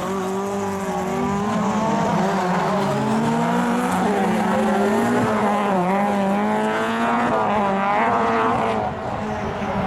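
Rallycross cars racing past, their engines running hard with revs rising and falling through gear changes, several engines heard at once.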